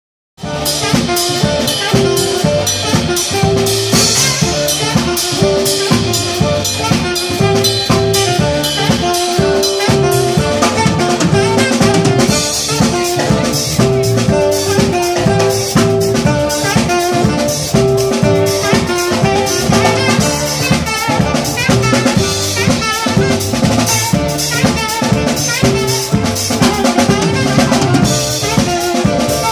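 Live band playing upbeat music: saxophone lead over a drum kit with a steady beat and a Roland X7 synthesizer keyboard. It starts a moment in.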